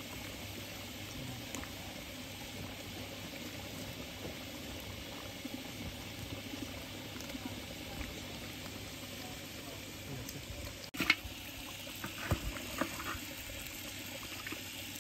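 Mutton curry bubbling at a steady boil in a large aluminium pot. About eleven seconds in comes a sharp clatter, followed by a few lighter knocks of the metal ladle against the pot.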